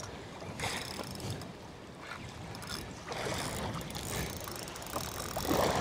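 Wind and sea water washing around a small boat on open water, with a few faint knocks.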